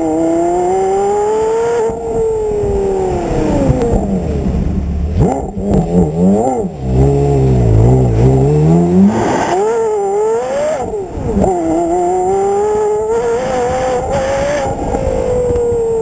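Porsche Carrera GT's V10 heard right at its exhaust tip while driven hard. Revs rise and ease off, then a few quick throttle blips around the middle bring it down to low revs, like rev-matched downshifts. It then revs up again through gear changes.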